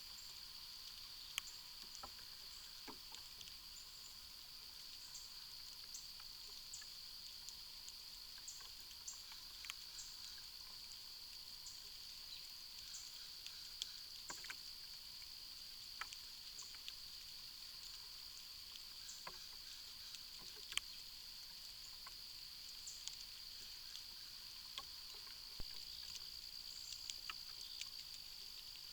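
Faint outdoor ambience: a steady high-pitched drone with scattered soft clicks and ticks.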